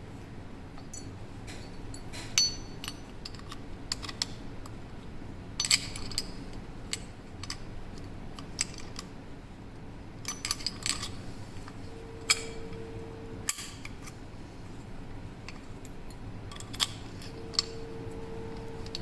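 Scattered small metallic clicks, taps and clinks of a puzzle lock and its keys being handled and turned, at irregular intervals.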